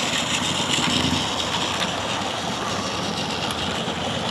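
Battery-powered Takara Tomy Plarail toy train running on plastic track, its small motor and gearing whirring steadily, a little louder in the first second or so as it passes close by.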